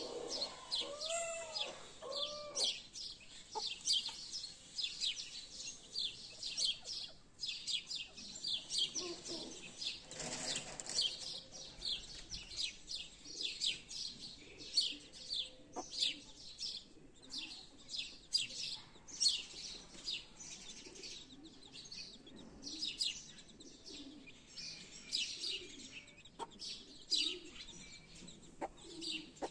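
Young chicks peeping in a steady stream of short, high cheeps, with a mother hen's lower clucks underneath. Near the start there are a few arching calls.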